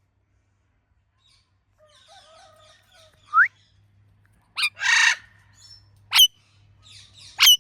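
Indian ringneck parrot calling after a quiet start: soft chatter, a short rising whistle, a harsh squawk about five seconds in, then two sharp shrieks near the end.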